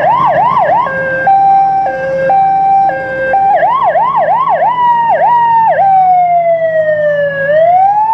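Electronic siren cycling through its tones: fast yelping sweeps, then about a second in a high-low two-note alternation, then fast yelping again, and after about five and a half seconds a slow falling wail that begins to rise again near the end.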